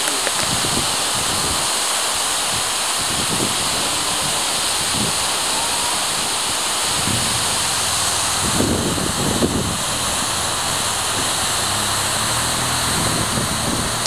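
Steady roar of a 55-metre waterfall, water crashing down a rock face, an even rushing noise with no let-up.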